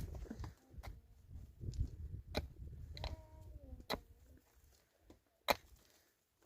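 Sharp knocks at a steady pace, about one every one and a half seconds, four in all, over low rumbling handling noise.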